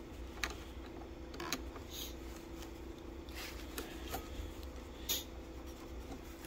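Faint, scattered metallic clicks and light scrapes of a screwdriver being fitted in against the hook assembly of a Sailrite LSZ-1 sewing machine, over a low steady hum.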